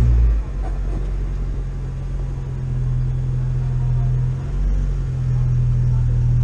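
UAZ-452 van's engine running through its newly fitted exhaust, a steady low drone heard from inside the cab while driving. A heavy low thump comes right at the start, and the drone dips briefly about four and a half seconds in, then runs louder.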